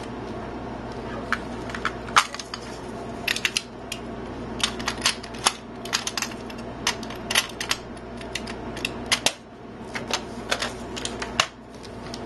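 A run of sharp, irregular clicks and taps over a steady low hum, from a Dell Latitude D600 laptop being handled and its power cord connected.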